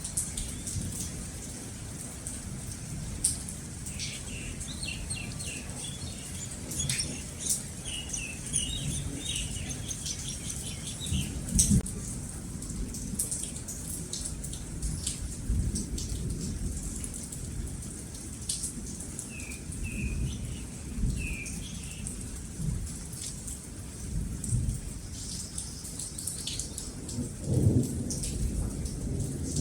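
Steady rain with rolling thunder rumbling on and off, the loudest claps about twelve seconds in and again near the end. Birds chirp in short runs of quick notes, first around the middle of the first half and again about two-thirds through.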